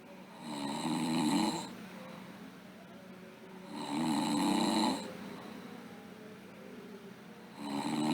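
A sleeping girl snoring: about a second of snoring every three and a half seconds or so, with the third snore starting near the end.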